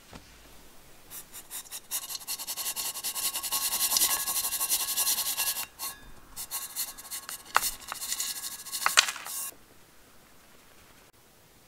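Crushed Oreo cookies crunching and crackling densely for a few seconds. Then come scattered taps and two sharp clicks as the crumbs are tipped onto the cream-topped cups. It goes quiet about two seconds before the end.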